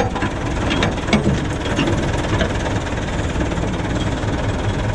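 Massey Ferguson 65 tractor engine idling steadily close by, with a few light metal clinks about a second in as the implement's linkage pin is worked into place.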